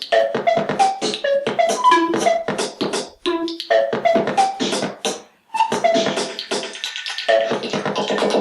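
Music: a quick run of short, pitched notes over a beat, breaking off briefly about 3 seconds and again about 5 seconds in.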